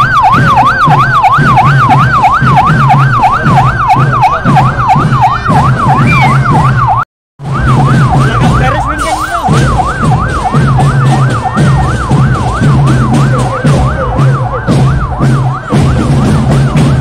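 Police car's electronic siren on a fast yelp, its pitch sweeping up and down about three times a second over a low pulsing hum. It drops out briefly about seven seconds in, then carries on.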